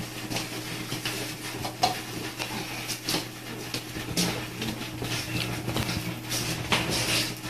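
Cats crunching dry kibble from small dishes on the floor: a steady stream of small, irregular crunches and clicks, with now and then a dish knocking. A steady low hum runs underneath.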